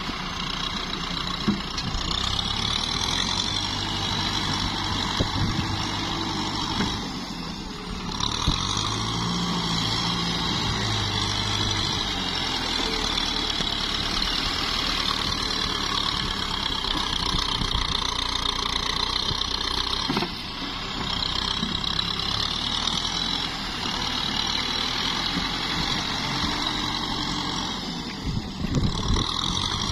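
Kubota M6040SU tractor's four-cylinder diesel engine running steadily while working in mud and water, its note briefly changing about 8 seconds in, about 20 seconds in and again near the end.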